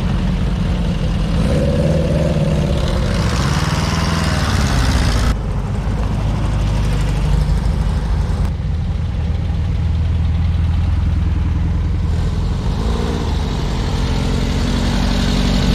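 Air-cooled Volkswagen flat-four engines of a VW camper bus and Beetles driving slowly past one after another, the engine note rising and falling as each goes by. The sound changes abruptly about five and eight seconds in.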